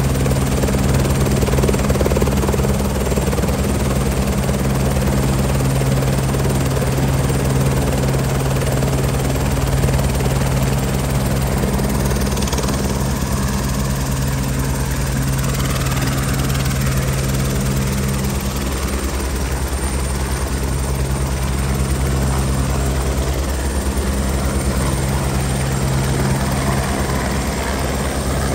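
An Airbus H125 helicopter running on the ground, its turbine and main rotor giving a steady, unbroken hum.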